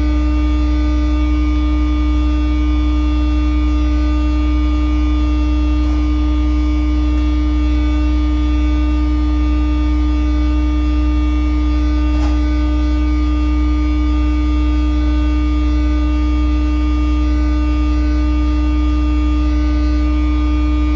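Loud, steady low drone of sewer maintenance machinery, with a constant hum tone and no change in level. A faint click comes about twelve seconds in.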